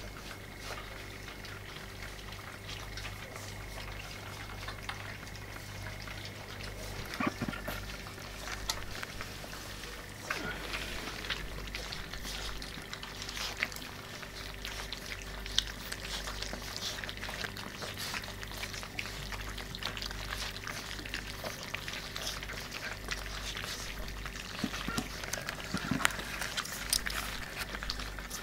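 Irish Setter puppies eating dry kibble together from a metal feeding dish: a steady mass of crunching, chewing and small clicks of kibble against the dish, with a few louder knocks. A steady low hum runs underneath.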